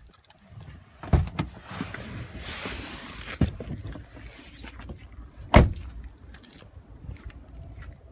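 Pickup truck door opening with a clunk, rustling as someone climbs out of the cab, then the door shut with a heavy thump, the loudest sound, about five and a half seconds in.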